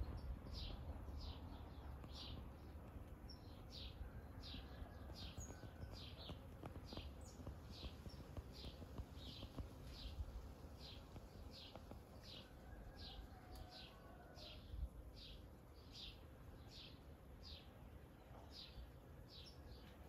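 A bird repeating a short, high, falling chirp over and over, about two a second, over faint outdoor background noise.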